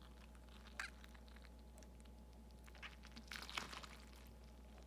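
Near silence: steady low room hum with a few faint handling clicks and rustles, one about a second in and a short cluster past three seconds.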